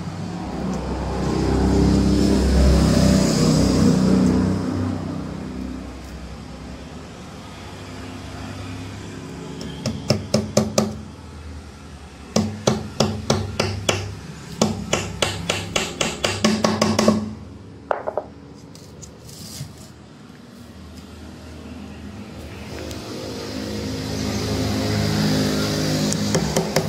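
Hammer tapping small nails into 8 mm marine plywood, in quick runs of sharp taps through the middle. A vehicle's rumble swells and fades at the start, and another builds up near the end.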